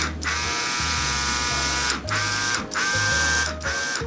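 Airbrush spraying, driven by a small air compressor: a steady buzzing hum under a hiss of air, broken by a few short gaps.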